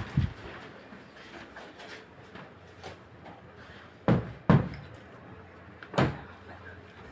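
Four dull knocks: one at the very start, two about four seconds in half a second apart, and one at six seconds.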